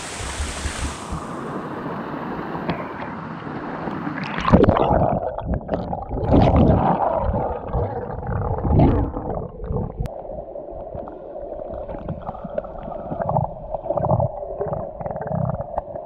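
A swimmer heard from under water: the bright hiss of the waterfall cuts off about a second in as the microphone goes under, and then come muffled gurgling, bubbling and swimming strokes. A steady hum runs through the second half.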